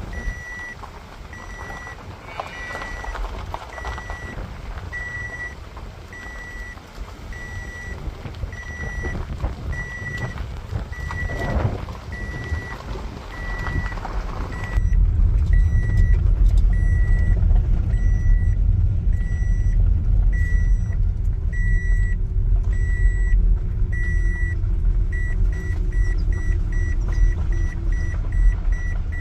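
A car's electronic warning chime beeping steadily, a little more than once a second, over vehicle noise; about halfway through a deep rumble comes in much louder and stays, with the beeping carrying on over it.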